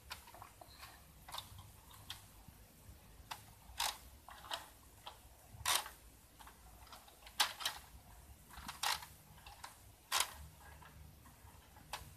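Plastic toy forklift and small wooden blocks being handled on a plastic toy truck's flatbed: irregular light clicks and knocks of plastic and wood, a few louder taps among them.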